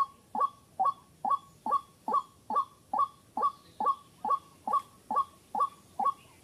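White-breasted waterhen call repeated in a steady rhythm: short notes falling in pitch, a little over two a second.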